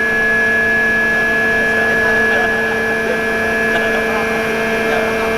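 Flood pump station machinery running: a steady, loud mechanical hum made of several fixed tones, unchanging throughout.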